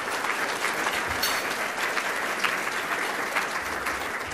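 Audience applauding steadily, a roomful of people clapping to welcome an award recipient to the stage.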